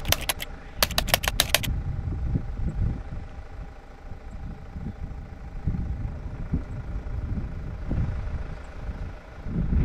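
A rapid run of sharp clicks, like keyboard typing, in the first couple of seconds, then a steady low rumble with a faint hum.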